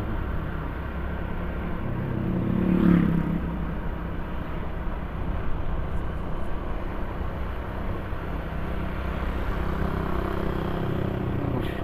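Motorcycle being ridden: steady engine and road noise, with a brief swell in engine pitch and loudness about three seconds in.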